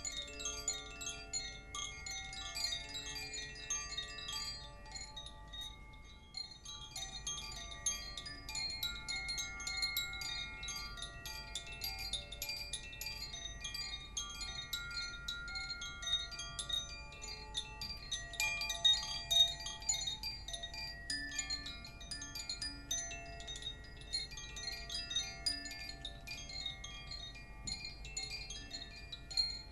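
Koshi chimes ringing continuously in a dense, random cascade of overlapping tones, thinning briefly about six seconds in.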